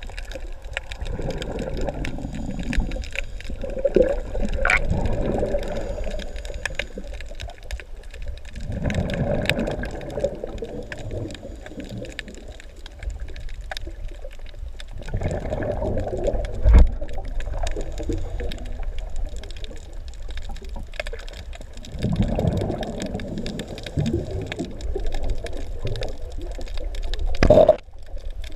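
Underwater sound through a camera housing: a diver's exhaled bubbles rumbling in swells about every six to seven seconds, with scattered sharp crackling clicks throughout.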